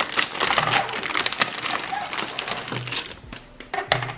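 Crinkling and rustling of packaging being handled as a motherboard is unpacked, with small crackles, easing off near the end.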